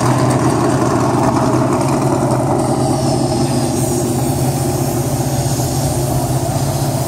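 Engine running steadily at an even pitch, with no revving.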